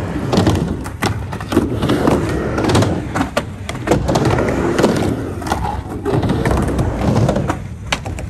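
Skateboard wheels rolling on a skatepark ramp with a steady rumble, broken by many sharp clacks as the board and trucks hit the ramp and its coping.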